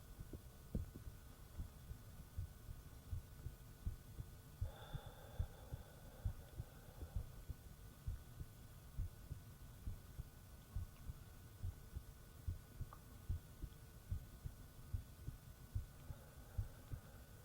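A man's heartbeat heard close up: a steady run of soft, low thumps.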